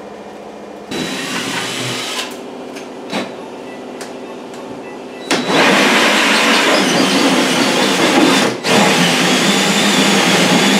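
Cordless drill driving a 6-inch hole saw through a drywall ceiling, run in reverse inside a plastic dust bowl. The drill first runs more quietly with a few clicks, then about five seconds in the saw bites into the drywall and the cutting noise gets much louder, dropping out for a moment about three-quarters through before going on.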